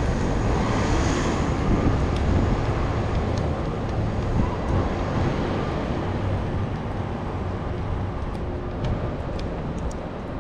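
Steady city ambience: a low rumble of distant traffic with wind noise on the microphone, and a few faint high ticks in the last few seconds.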